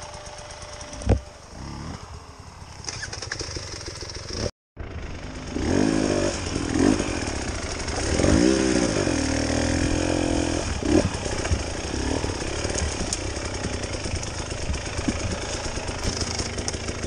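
Dirt bike engine close to the rider, ticking over quietly at first. The sound cuts out for a moment about four and a half seconds in, then the engine revs up and down in repeated surges as the bike is ridden over rough trail, settling to a steadier run near the end.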